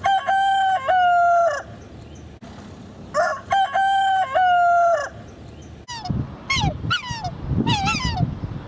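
A rooster crows twice, each crow about two seconds long. Then, about six seconds in, black swans give several short, falling honking calls.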